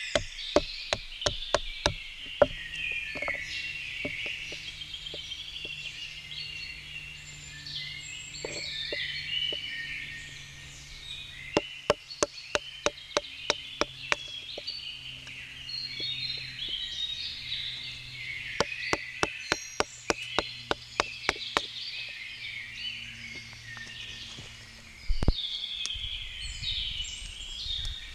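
Birds singing in woodland, many chirps overlapping. Three runs of rapid sharp ticks, about four a second, come and go: at the start, in the middle and about two-thirds of the way in. A single heavy knock comes near the end, over a faint low steady hum.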